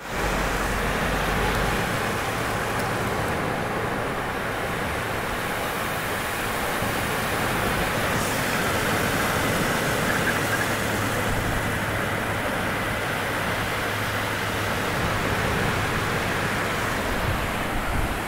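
Rough ocean surf breaking and washing up the beach, a steady wash of noise, with some low wind rumble on the microphone.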